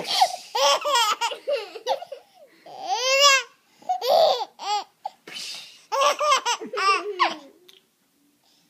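A baby laughing in a run of short, high-pitched squealing bursts. The bursts stop shortly before the end.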